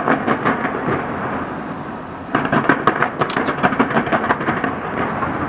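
Fireworks going off in dense, rapid crackling flurries over a steady rumble. One flurry is dying down in the first second, and another loud one starts about two seconds in and lasts about two seconds.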